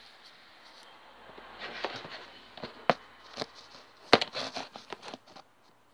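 Handling noise from a phone held in the hand: fingers rubbing and tapping on it close to its microphone, with a string of sharp clicks and knocks, the loudest about four seconds in.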